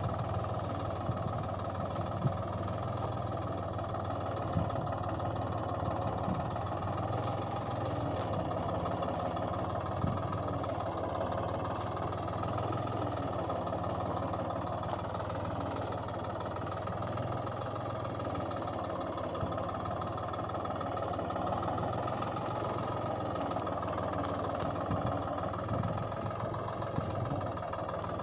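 Steady tractor-engine running sound, even and unchanging, with a few faint clicks over it.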